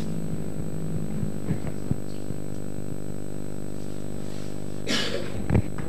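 Steady electrical mains hum with a thin high whine above it, broken only by a few faint clicks and a short rustle about five seconds in.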